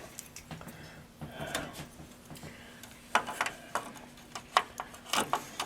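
Small sharp clicks and plastic taps as a RAM stick is handled and pressed into a motherboard's memory slot, the slot's retention clips snapping. A quick run of clicks starts about three seconds in, with another cluster near the end.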